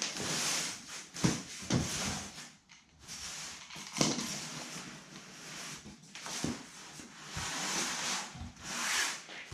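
Window screen mesh being worked on its frame: rustling and scraping of the mesh, with a few sharp knocks or clicks.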